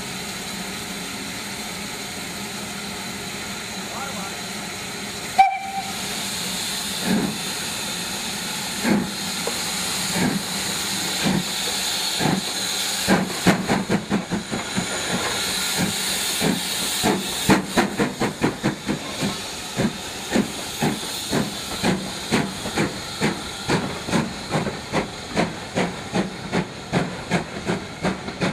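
Steam locomotive hissing steam, then pulling away: its exhaust beats start slow, about two seconds apart, and quicken steadily to about two a second as it gathers speed. A short sharp sound comes about five seconds in, before the first beats.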